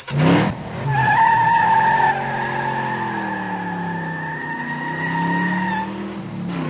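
Car tyres squealing in a long skid, a steady high squeal from about a second in until near the end, over an engine note that rises and falls. A short burst of noise comes right at the start.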